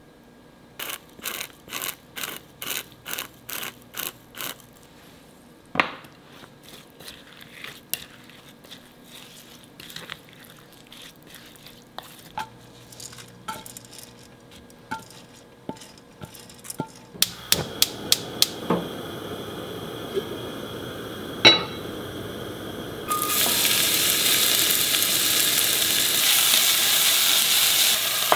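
Cooking sounds: near the start a run of about a dozen quick, even knocks, then scattered clinks of utensils and cookware. About five seconds before the end a loud, steady sizzle starts suddenly as food begins frying in a hot pan.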